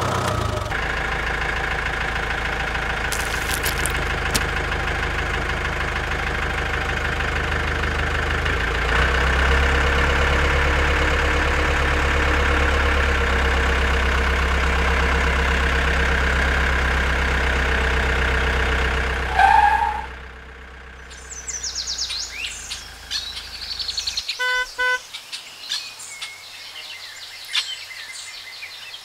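A steady tractor engine sound runs for about twenty seconds and cuts off after a brief loud peak. Then birds chirp, with a few short beeps of a horn about five seconds later.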